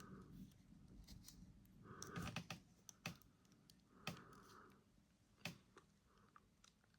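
Faint, scattered clicks and taps of hard plastic as an action figure is handled and its removable beret is taken off.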